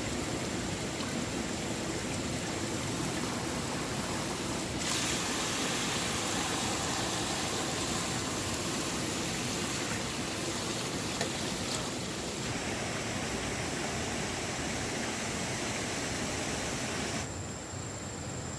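Steady rushing of flowing water, like a stream, whose tone shifts abruptly about five, twelve and seventeen seconds in. A faint, thin, steady high whine sits under it.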